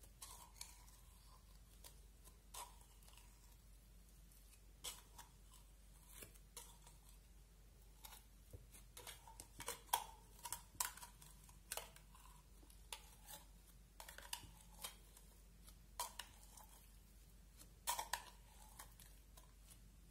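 Thick blue slime being pulled and scraped out of a plastic container with a plastic scoop: scattered faint clicks, coming most often about halfway through.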